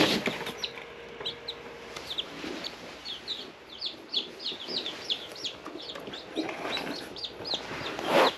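Newly hatched chicks peeping over and over, several short high-pitched falling peeps a second. Rustling and knocking from the chicks being handled come at the very start and again for the last two seconds.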